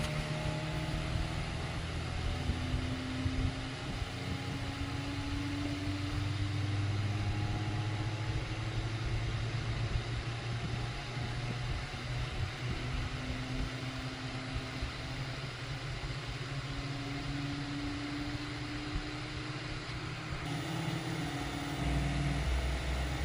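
Bambu Lab P1S 3D printer running, its stepper motors whining in tones that shift pitch every few seconds as the toolhead moves, over a steady low hum.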